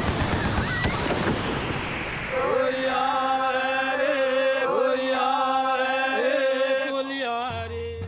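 A dense crackling noise that fades out over the first two seconds, followed by a singing voice holding long, chant-like notes that dip briefly in pitch now and then, from the parade float's music. The singing stops shortly before the end and a low hum is left.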